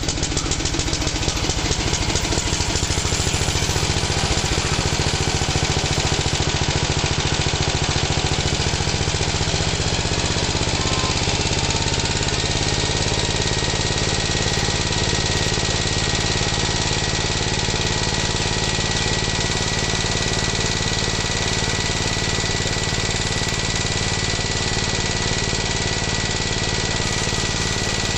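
Steady, fast chugging of a small single-cylinder diesel engine like that of a walk-behind tractor, running on without a break. A thin steady whine joins it about twelve seconds in.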